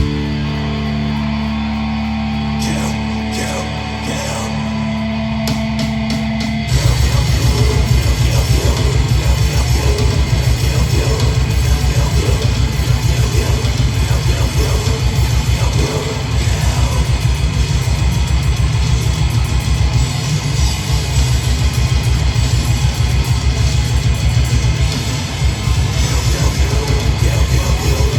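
Heavy metal band playing live: distorted guitar and bass holding sustained notes, then about seven seconds in the full band crashes in louder with fast, dense drumming under the guitars.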